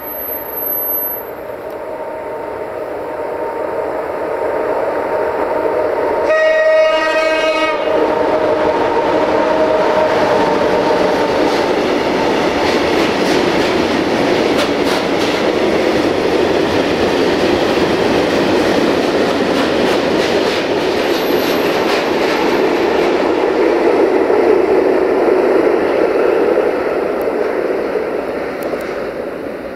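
Freight train of tank wagons, hauled by an electric locomotive, passing through the station. There is one horn blast about six seconds in as it comes on. Then comes a long run of wheel noise with rapid clicking over the rail joints, which fades near the end as the train draws away.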